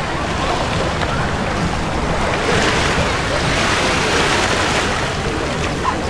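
Beach ambience: a steady wash of Black Sea surf with faint distant voices of people on the beach.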